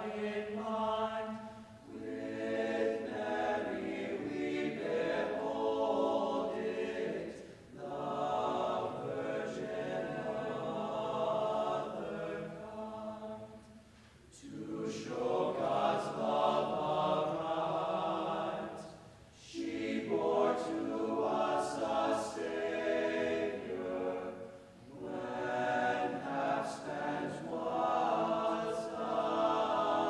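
Mixed choir of men's and women's voices singing a cappella, in long sustained phrases broken by brief breathing pauses every five or six seconds.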